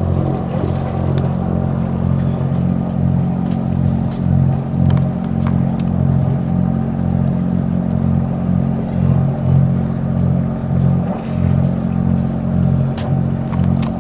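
Boat engine running steadily underway, a low, even drone.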